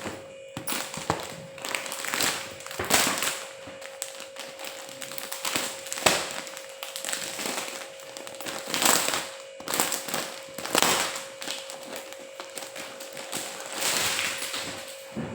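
Irregular rustling and tapping of things being handled close by, in short clusters, over a steady faint hum.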